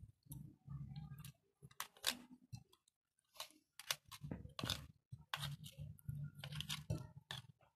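A metal spoon scraping and clicking against a plastic container as chunks of watermelon are scooped out and dropped into a bowl of cream and condensed milk, in an irregular run of clicks and short scrapes.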